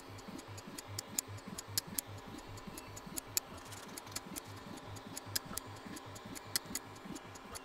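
Artillery Genius Pro 3D printer auto bed leveling: the BLTouch probe clicking as it taps the bed point after point, several clicks a second, with short low hums from the stepper motors moving between taps.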